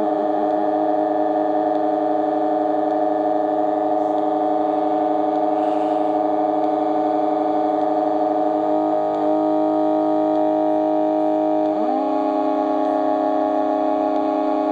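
DIY-built Weird Sound Generator analog synthesizer sounding a steady, buzzy electronic drone with several pitches at once. The pitches shift about nine seconds in and jump up suddenly about twelve seconds in.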